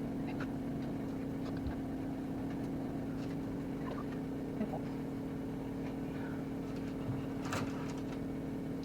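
A steady low hum throughout, with a few faint taps and clicks from a heart-shaped biscuit cutter pressing through shortbread dough and biscuits being set on a lined baking tray.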